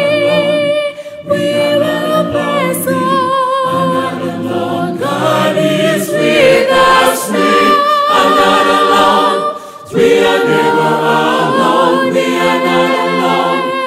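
A mixed choir singing a cappella in harmony, holding long notes with vibrato, with two short breaks for breath, about a second in and near ten seconds.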